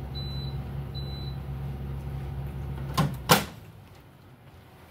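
A steady low machine hum runs and then cuts off abruptly about three seconds in, right after two sharp clicks.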